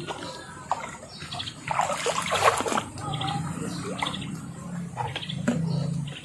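Running fresh water pouring and splashing, with a few short calls over it.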